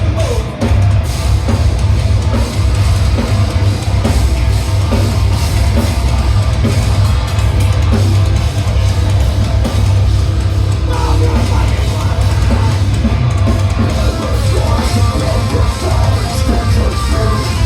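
Live band playing loud heavy rock: a drum kit pounding under distorted electric guitar, continuous throughout.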